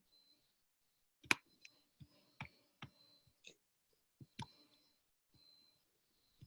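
Irregular clicks from a computer being worked, about eight in three seconds, the loudest a little over a second in.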